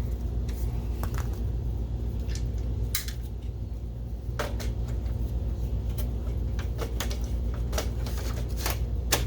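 Scattered light clicks and ticks of screws and small metal parts being snugged into a projector's chassis by hand, over a steady low hum.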